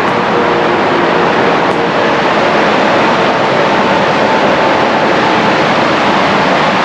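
Steady rushing of Pocono Creek's rapids and small waterfall below the trail, a loud, even wash of water noise.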